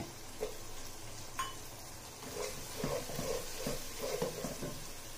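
Onions and slit green chillies frying in hot oil in a pot, sizzling steadily. A spoon stirs and scrapes around the pot from about halfway through.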